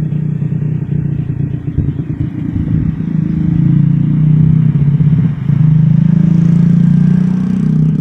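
A motorcycle engine running close by, a steady low rumble that grows louder about three seconds in.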